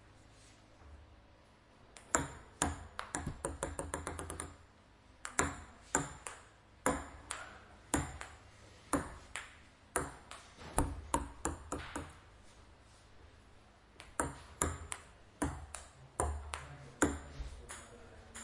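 Ping pong ball clicking sharply against paddle and table. About two seconds in it bounces faster and fainter until it settles; after that come evenly spaced hits about two a second, with a short pause near the middle.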